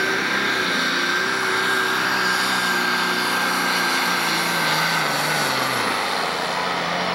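John Deere Pro Stock pulling tractor's turbocharged diesel engine running flat out under the sled's load, with a steady high whine over the engine note. The engine note sags slightly about five to six seconds in.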